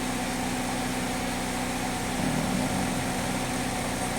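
2007 Chevy Cobalt's 2.2-litre Ecotec four-cylinder engine idling steadily.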